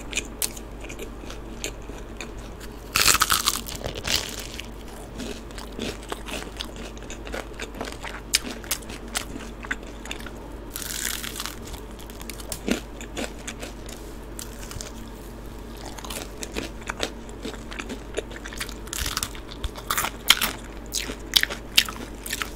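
Biting and chewing crispy cheese-powdered fried chicken: crunches of the fried crust, loudest about three seconds in, with more bursts of crunching around eleven seconds in and near the end, and softer chewing between.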